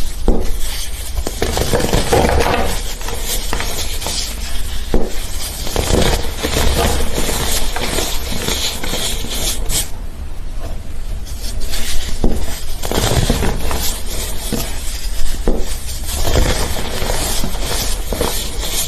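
Slime being squished and handled, with irregular clicks and crackles.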